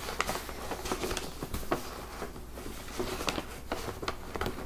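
A bag rustling and crinkling as it is handled, with many small irregular clicks and crackles.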